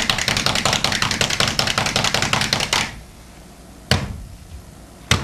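A rapid, even run of sharp clicks, about ten a second, that stops about three seconds in, followed by two single clicks.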